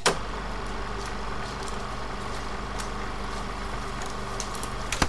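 Old film projector running: a steady whirring hum with scattered crackles, a sharp click at the start and another near the end.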